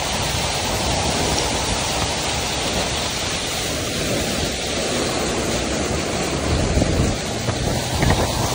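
Car tyres ploughing through standing floodwater: a steady wash of spraying and splashing water, with louder surges near the end.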